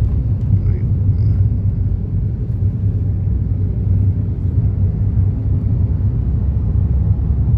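Steady low rumble of a car driving along, road and engine noise heard from inside the moving car.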